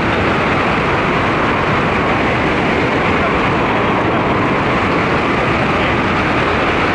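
Steady rushing wind of a skydiving freefall blasting the camera's microphone, an even noise with no voices or music; it cuts off suddenly at the end.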